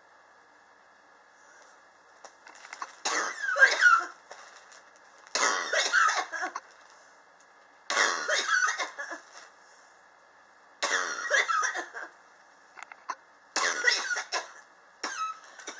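A person coughing in repeated fits: six bouts of several coughs each, about a second long and two to three seconds apart, starting about three seconds in. It is a persistent chronic cough that has gone on for years.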